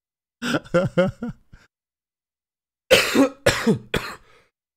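A man laughing in a few short bursts, then a louder run of coughing laughs about three seconds in.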